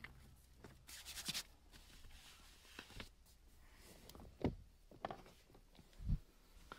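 Faint rubbing and scraping of a hand working soap onto a tape-wrapped wire end, with a scratchy stretch about a second in. Two dull thumps, the loudest sounds, come past the middle and near the end.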